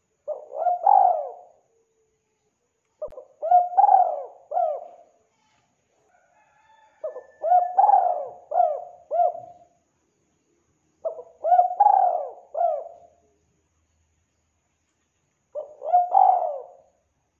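Spotted dove (tekukur) cooing: five phrases of three or four rolling coos each, about every four seconds.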